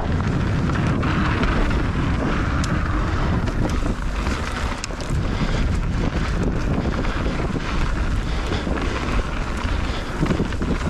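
Mountain bike ridden along a trail: wind buffeting the action camera's microphone over the rumble of tyres on dirt and roots, with the bike rattling in many sharp clicks.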